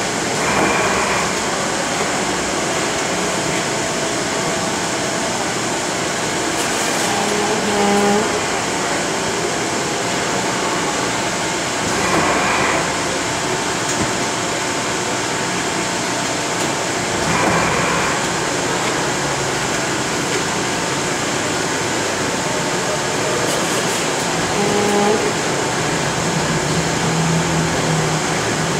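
Automated induction hardening and quench cell running: a steady machine din with a louder rushing surge every several seconds as parts are cycled through and quenched, and a couple of brief humming tones from the robot or its fixtures.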